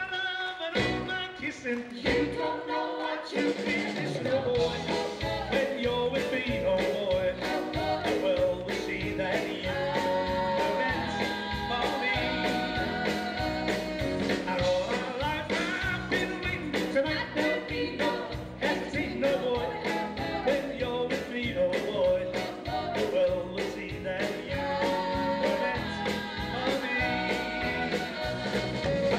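Live rock and roll band playing with a male lead singer: drums, electric guitars, bass and keyboards with a steady beat. The bass and drums drop out for the first few seconds, then the full band comes back in under the vocal.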